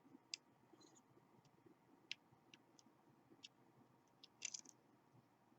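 Faint, sharp metallic clicks and ticks of a lock pick working the pins inside a KABA Gemini lock: scattered single clicks, then a quick cluster of several near the end.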